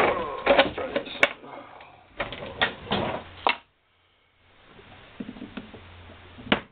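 Handling of a High Standard HD Military .22 pistol and its magazine: a run of sharp mechanical clicks and rattles in the first few seconds, a short pause, then one more click near the end.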